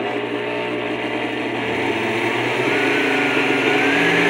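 Vintage Oster Kitchen Center blender motor base running with no jar fitted, a steady motor whine that slowly rises in pitch and grows louder as the speed dial is turned up.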